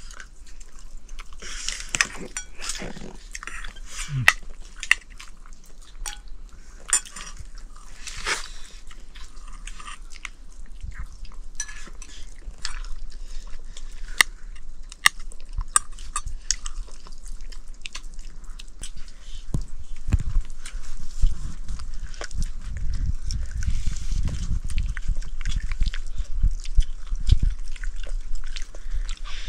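People eating a meal close to the microphone: chewing and biting, with many small sharp clicks and clinks of plates and utensils, and a run of denser low thumps in the second half.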